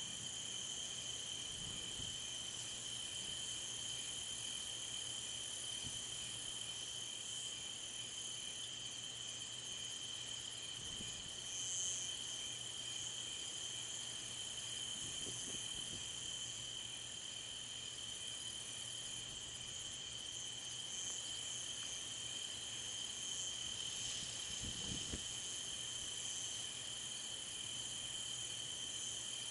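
Crickets chirping in a steady night-time chorus, a continuous high trill with a second, higher band above it.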